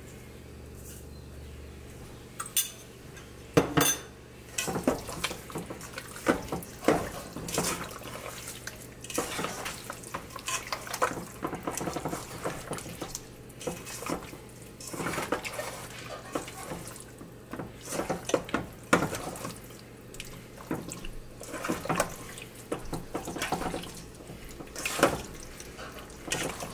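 Spoon and bowl clinking and knocking in irregular taps, with some wet sounds, as chicken is mixed with a yogurt, ginger, garlic and salt marinade.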